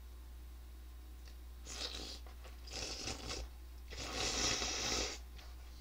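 A person eating with chopsticks: three short, noisy bursts of mouth-and-food eating sound, about two seconds in, about three seconds in, and a longer, louder one about four seconds in.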